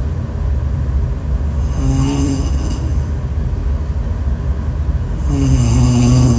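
Heavy snoring: a continuous low rumble, with a pitched, drawn-out snore about two seconds in and another near the end, in a slow rhythm of about one every three and a half to four seconds.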